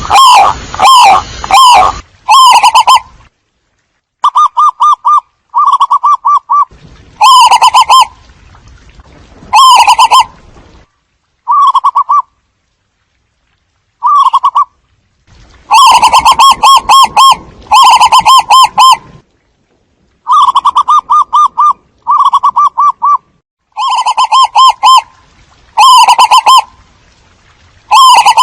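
Zebra doves cooing: loud, repeated phrases of rapid rolling notes, each phrase a second or two long with short pauses between. It is a looped lure recording used to call in a flock.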